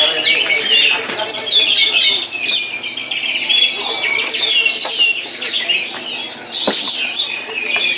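Many caged songbirds at a bird-singing contest, all singing at once: a dense, unbroken chorus of quick, high whistles, trills and chirps overlapping each other. A single sharp click cuts through about two-thirds of the way in.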